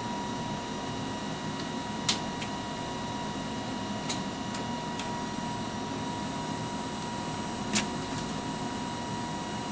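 Steady machine-room hum and hiss from a bank of Ampex 2-inch quadruplex videotape machines, with a constant thin high tone running under it. A handful of sharp clicks break through, the loudest about two seconds in and again near the end.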